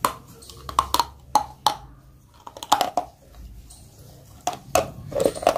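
Close-up biting and crunching of brittle pale blue-grey chalk-like pieces: a string of sharp crunches, some in quick pairs, about a dozen in all.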